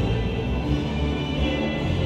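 Slow instrumental music of long held chords over a deep bass note, with the bass shifting near the end.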